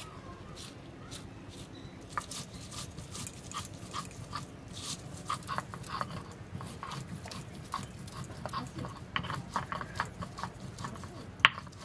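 Stone roller grinding spice on a flat grinding stone (Bengali shil-nora): repeated short grinding strokes, a few a second, starting about two seconds in, with a sharp knock near the end.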